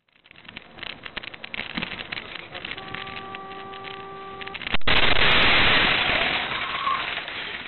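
Rattling road noise inside a moving vehicle, then a horn sounding steadily for about two seconds, then a sudden loud crash of a collision about five seconds in that dies away over the next two seconds.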